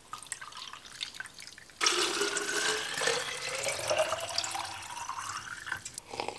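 A few faint drips of lemon juice falling from a hand-press citrus squeezer into a plastic cup. Then water is poured from a jug into a narrow-necked plastic water bottle, its pitch rising as the bottle fills, until the pour stops about six seconds in.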